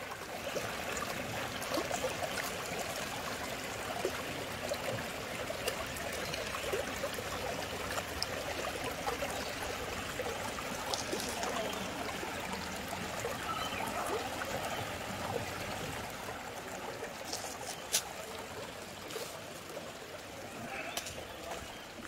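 Stream water trickling steadily, with one sharp click late on.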